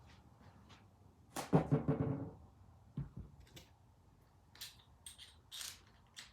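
Steel vise parts being handled during assembly: one ringing metallic clank about a second and a half in, then several small sharp clicks.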